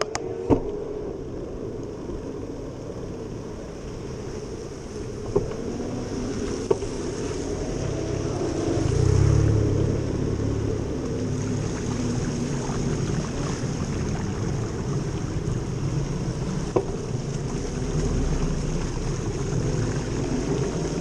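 Steady outdoor noise on a seafront: a low rumble with hiss, broken by four short sharp knocks and a louder surge of rumble about nine seconds in.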